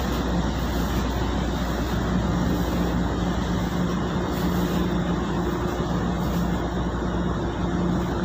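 Ship's machinery running with a steady drone and a constant low hum, a faint tone coming and going over it.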